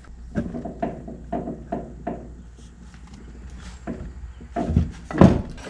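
Bench arbor press driving a Teflon bushing into a 200-4R transmission's direct drum: a run of short clicks and knocks as the ram pushes the bushing in, ending in a few heavier knocks, the loudest about five seconds in, as the bushing seats.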